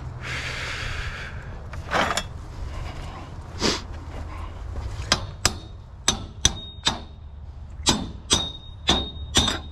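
Hammer blows on metal: about ten sharp strikes in the second half, several with a short metallic ring, after two duller knocks. A brief hiss comes just before them.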